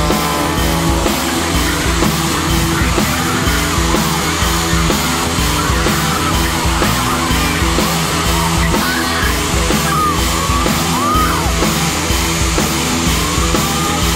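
Rock music with a steady beat and a shouted vocal.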